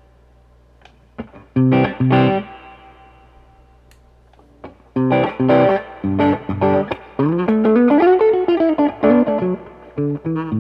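Electric guitar, a Reverend Pete Anderson PA-1, played through a Mesa Boogie 5:25 Express 1x10 combo amp. A dying note rings out, two short chord stabs come about two seconds in, and after a pause comes a phrase of single notes with a long bend that rises and falls back, ending in short clipped notes.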